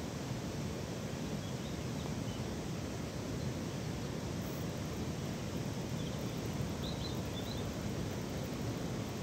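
Steady wind noise on the microphone, with a few faint bird chirps, the clearest about two-thirds of the way through.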